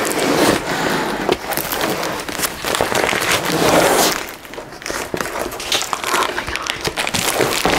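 A damaged, retaped cardboard box being worked open by hand: irregular crinkling, scraping and crackling of cardboard and packing tape, with a brief lull about halfway through.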